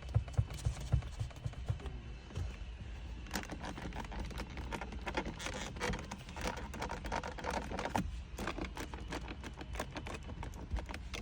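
Mercedes-Benz GLC interior trim creaking and ticking in quick, irregular clicks over a low steady rumble; the squeaks and rattles are a sign of poor build quality.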